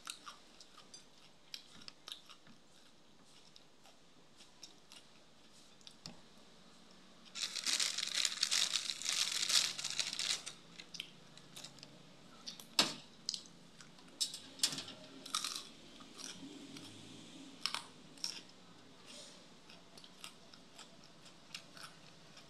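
Close-up mouth sounds of chewing and crunching crisp raw young winged beans, with scattered crunches and a louder spell of crackling lasting about three seconds, a third of the way in.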